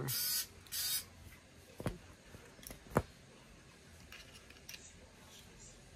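Skil 4V cordless screwdriver's small motor whirring in two short bursts, tried out to check that it has charge. Then two sharp knocks as the tool is handled, the second one louder.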